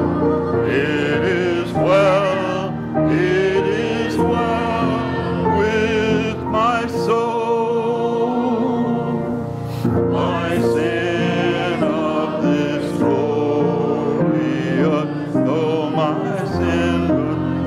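Church congregation and choir singing a hymn together, a song leader's voice on a microphone leading, over sustained instrumental accompaniment.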